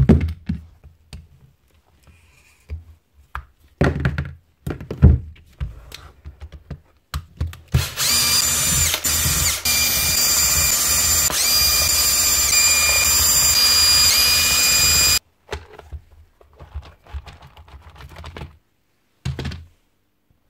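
Cordless drill/driver running steadily for about seven seconds, backing out the housing screws of an SDS hammer drill. Its motor whine wavers a few times and then cuts off sharply. Before and after it come scattered knocks of the tools being handled and set down.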